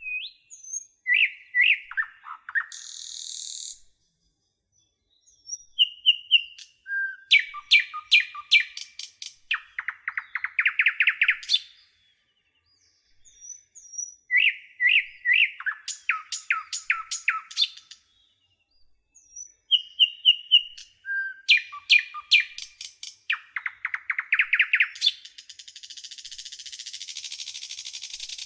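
Common nightingale singing: four bursts of song made of rapid repeated whistled notes and fast trills, with clear pauses between them, the first and last ending in a long buzzy rattle.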